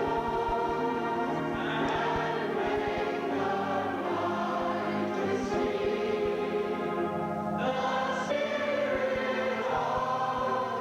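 Church congregation singing a slow worship chorus together, supported by piano and organ, in long held chords that change every couple of seconds, heard through an old VHS tape recording.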